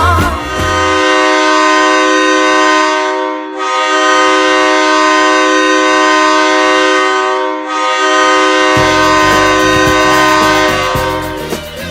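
Hockey arena goal horn sounding a steady chord in three long blasts of about four seconds each. Goal-song music with a beat comes in under the third blast.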